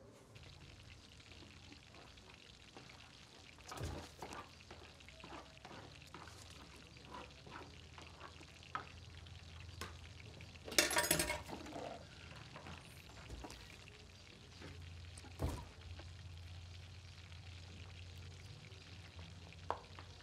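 Bowls and food being handled at a kitchen counter: scattered knocks of bowls set down on the stone countertop and food being scooped and scraped from one bowl into another, with a louder burst of scraping and tipping about eleven seconds in.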